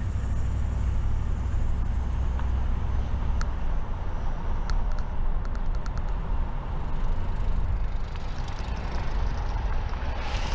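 Car being driven on city streets: a steady low rumble of road and engine noise, with a short run of light ticks about five seconds in.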